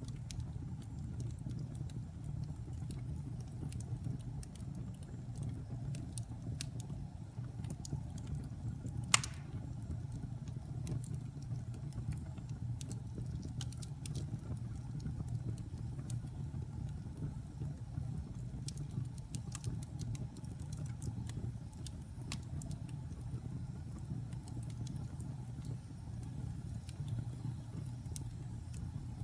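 Wood fire burning in a fireplace: a steady low rumble of flames with scattered small crackles, and one sharp, louder pop about nine seconds in.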